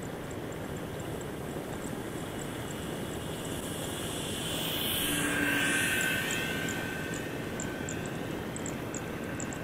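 The electric motor and propeller of a small RC motor glider (Eachine Razor 1200mm) passing the microphone in flight. The whine grows louder to a peak about halfway through, then fades as its pitch drops.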